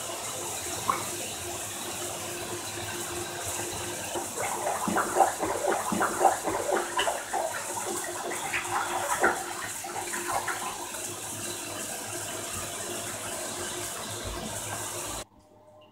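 Bathtub filling from the tap: a steady rush of running water, with some rustling and clicks from handling about halfway through. The water sound cuts off abruptly near the end.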